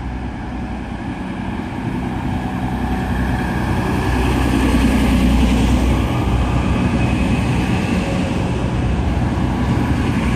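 Class 185 diesel multiple unit's engines running, a steady low hum that grows louder over the first few seconds and peaks about five seconds in.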